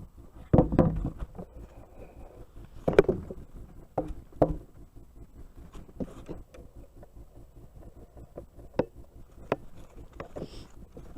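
A string of irregular wooden knocks and thumps from a freshly milled slab and log being handled and moved. The loudest thumps come about half a second in and about three seconds in, with lighter knocks after.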